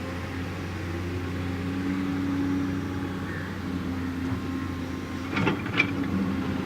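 JCB backhoe loader's diesel engine running steadily, building a little about two seconds in. A few sharp knocks come near the end, the loudest of them standing out above the engine.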